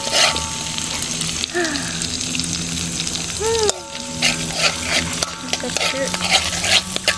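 Chili and spice paste sizzling in hot oil in an aluminium wok, stirred and scraped with a metal spatula: a steady sizzle broken by repeated short scrapes of metal on the pan.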